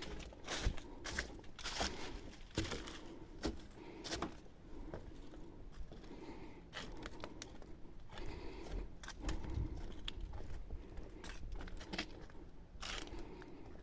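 Irregular rustling, crinkling and sharp clicks at uneven intervals, with no steady source underneath.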